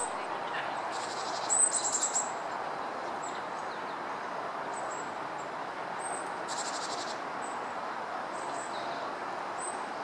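Japanese tit calling: thin, high, short notes now and then, and a brief burst of rapid buzzy chatter about a second in and again about six and a half seconds in, over steady background hum.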